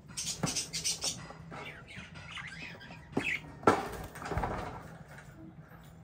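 Budgerigars chirping and chattering, thickest in the first second and thinning out later, with a few sharp knocks mixed in. The loudest knock comes nearly four seconds in.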